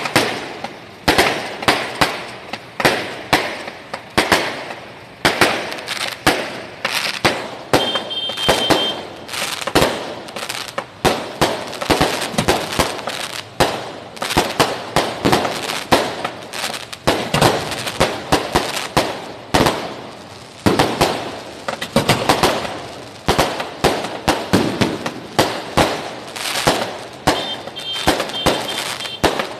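Aerial fireworks going off in quick succession: loud sharp bangs, several a second and often overlapping, without a break.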